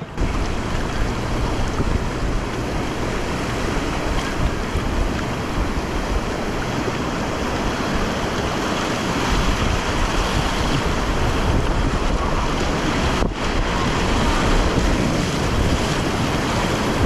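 Whitewater rapid rushing: a steady, dense roar of churning river water, with wind noise on the microphone.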